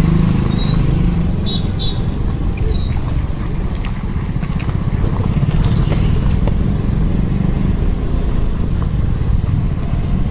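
Motorcycle engine running steadily while riding, with a continuous low pulsing drone.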